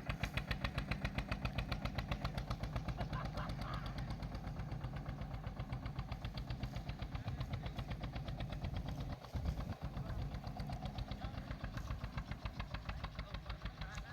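Tractor engine running steadily under load, with a fast, even chugging pulse that dips briefly about nine seconds in.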